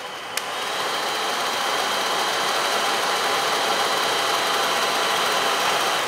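Nobby salon hair dryer running: a switch click, then the rush of air builds up as it is switched to its higher setting. It runs steadily with a high whine over the airflow, and drops away at the end.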